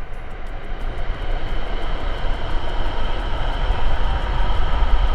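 Rushing river water in a rainforest stream, a loud steady noise with a deep rumble underneath.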